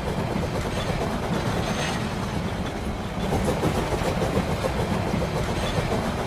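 Motorised toy train running along its track: a steady rumble with a light clatter of the wheels.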